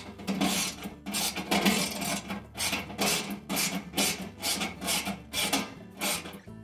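Ratchet wrench worked back and forth to drive a bolt into a washer's tub support leg: a rasping ratchet buzz repeated about twice a second.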